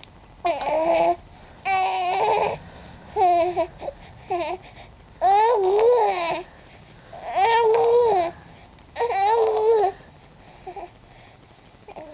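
Young infant cooing and babbling: about seven high-pitched vocal sounds with gliding, wavering pitch, some about a second long, separated by short pauses and fading off near the end.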